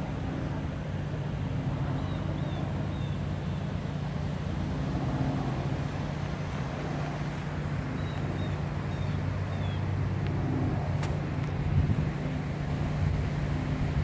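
A steady low motor hum, like an engine running nearby, over a haze of wind noise. Twice a bird gives a short run of three or four falling chirps.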